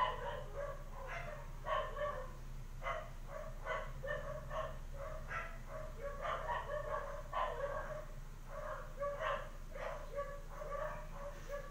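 An animal calling over and over, short pitched calls about two a second.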